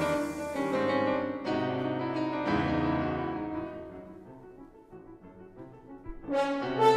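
Modern orchestral music in which a ragtime-style piano is interrupted by horns: sustained piano and brass chords die away to near quiet a few seconds in, then sharp, loud chords break in near the end.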